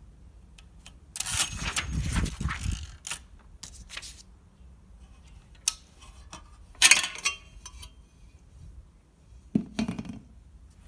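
Olivetti Lettera 32 portable typewriter being handled: irregular metallic clicks and clatter in several clusters, the loudest about a second in and near seven seconds, not an even typing rhythm.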